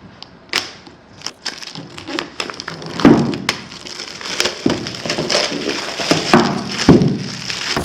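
Plastic shrink-wrap being peeled and torn off an iPad Pro's cardboard box: irregular crackling and crinkling of the film, with a few louder knocks as the box is handled.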